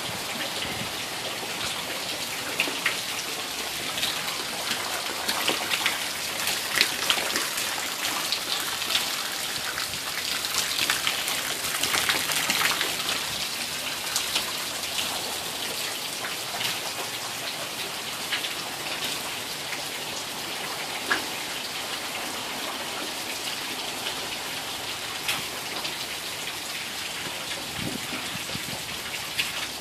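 Heavy rain falling steadily: a constant rain hiss with frequent sharp ticks of drops splashing close by.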